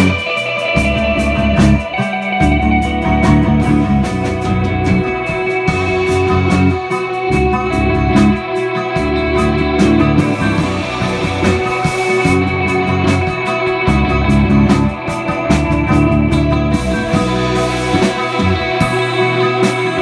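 Live improvised instrumental rock jam: electric bass holding long low notes that change every second or two, electric guitars with sustained, ringing tones, and drums keeping time on the cymbals.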